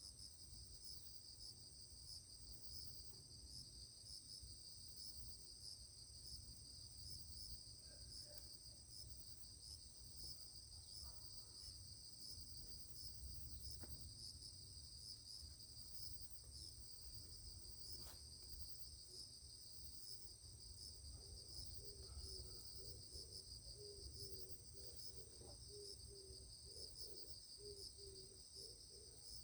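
Insects chirping: a steady, high-pitched pulsing chorus, faint throughout, with a few soft clicks.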